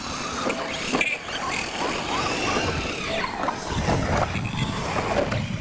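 Radio-controlled scale trophy trucks racing on a dirt track, their small motors whining and rising and falling in pitch as they speed and jump, with people talking nearby.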